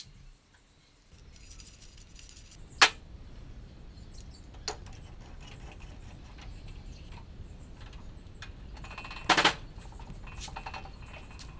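Homemade steel pipe clamp knocked and handled against a steel workbench: one sharp metal clank about three seconds in, a lighter click near five seconds, and a short run of clinks about nine seconds in, over a steady low hum.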